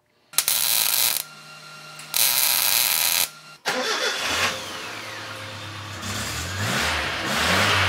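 Two loud bursts of hissing noise, then the 1976 Chevy LUV's four-cylinder engine starts about four seconds in and is revved in short blips, running through the replacement muffler that has just been fitted.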